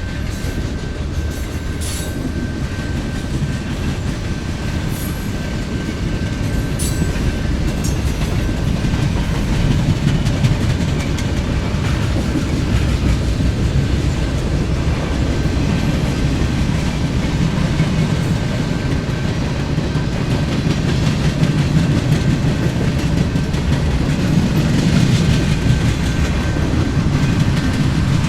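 Train passing close by: a loud, steady rumble of rail cars rolling along the track, with scattered sharp wheel clicks and a faint steady high tone above it.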